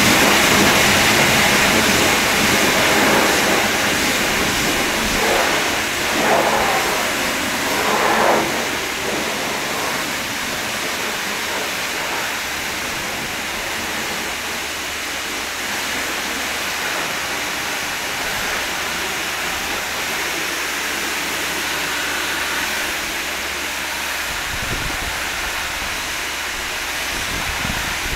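High-pressure washer jet rinsing foam off a car, a steady hiss of water spraying onto the body and wheels. It is loudest over the first eight seconds or so, with two short surges, then settles to an even, slightly quieter spray.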